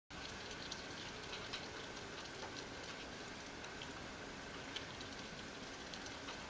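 Small animals eating chopped raw meat from a dish: faint, irregular wet clicks of chewing and nibbling over a steady hiss.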